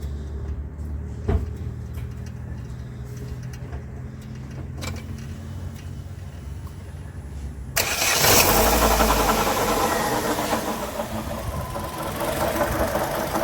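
2012 Chevrolet Aveo's engine starting abruptly about eight seconds in, after a quiet low hum and a couple of clicks, then running at idle. With the serpentine belt back on, the strange noise returns, which the mechanic takes for a failing water pump knocking.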